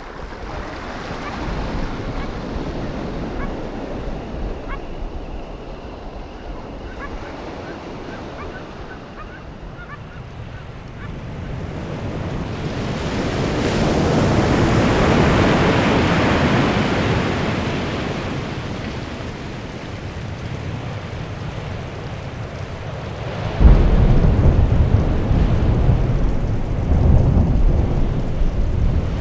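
Ocean surf washing over a rocky shore, swelling to a loud peak about halfway through and easing off again. Near the end a sudden loud low rumble cuts in and carries on.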